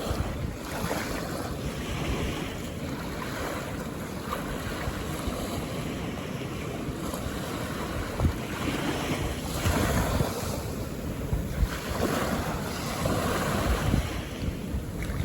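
Calm ocean waves washing in on a beach: a steady hiss of surf that swells twice in the second half as waves break and run up the sand.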